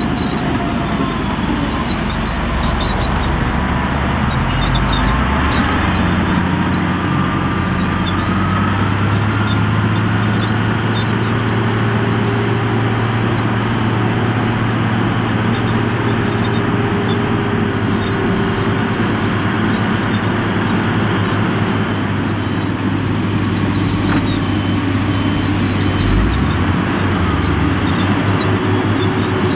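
Heavy diesel earthmoving machinery running steadily under work. A faint whine rises in pitch about seven to ten seconds in.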